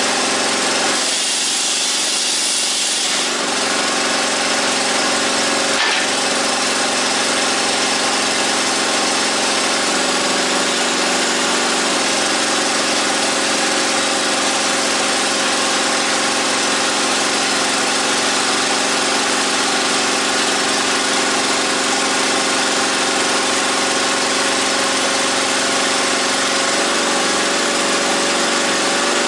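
Homemade firewood processor's hydraulic power unit running steadily at a constant pitch. A brief hissing stretch comes about a second in, and a single click comes around six seconds.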